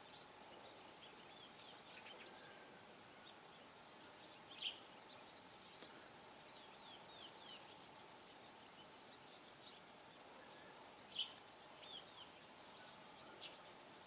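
Faint small-bird chirps over steady background hiss, with two louder chirps, one about four and a half seconds in and one near eleven seconds.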